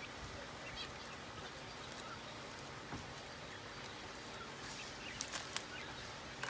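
Faint bird chirps over a quiet outdoor background, with a few light clicks and rustles from hands working in a plastic crate of Japanese quail, the clearest two about five seconds in.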